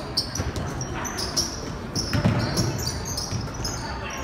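Basketball bouncing on a hardwood gym floor during play, with short high sneaker squeaks scattered throughout.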